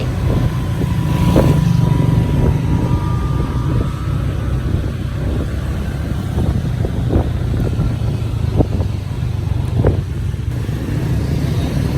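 Honda Click 125i scooter riding along the road, a steady low engine and road rumble with a few short knocks from bumps or passing traffic.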